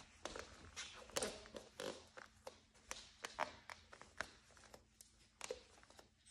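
Creaks and clicks from a wooden plank floor under slow barefoot footsteps: short, irregular cracks and squeaks, several close together as weight shifts onto each foot.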